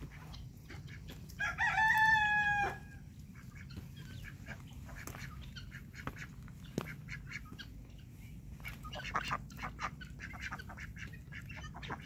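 A rooster crows once, a loud stepped call a little over a second long, starting about a second and a half in. Softer scattered clucking and chattering from poultry follows near the end.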